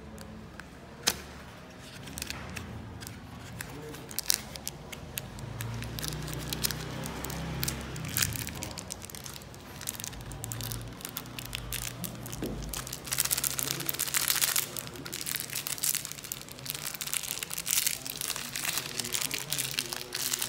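Packaging being unwrapped and torn open by hand: irregular crinkling, rustling and crackling, with a single sharp click about a second in and a busier stretch of rustling past the middle.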